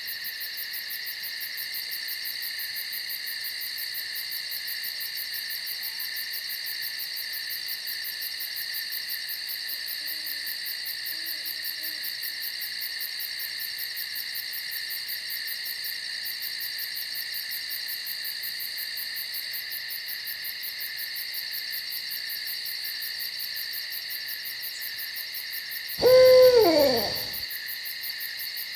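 Owl hoot: one loud call about 26 s in, sliding down in pitch over about a second and a half, with a couple of faint low calls earlier. Behind it a steady chorus of fast, high insect trills.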